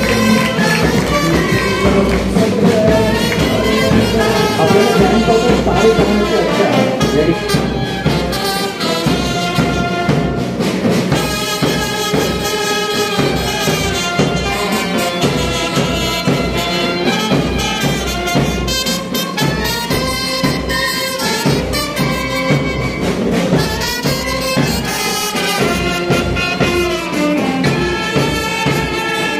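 A police brass band playing a tune live. Clarinets, saxophone, trumpets and a euphonium carry the melody over steady bass drum and snare drum beats.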